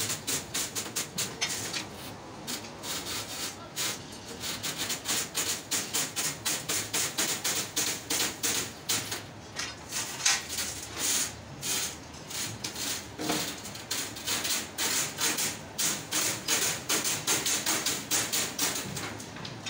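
Steel wires clicking and rattling against a wire mesh as it is woven by hand: a fast, uneven run of light metallic ticks, several a second.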